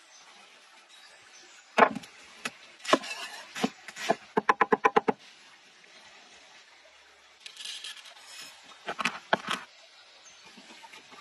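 Hand food preparation on a wooden board: scattered knocks and taps, a quick run of about eight knocks near the middle, and a short stretch of soft hissy handling noise.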